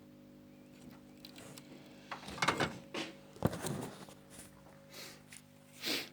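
Knocks, clatter and rustles of objects being handled, over a steady background hum.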